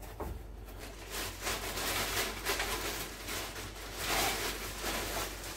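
Clear plastic bag rustling irregularly as a rifle is drawn out of it, loudest about four seconds in.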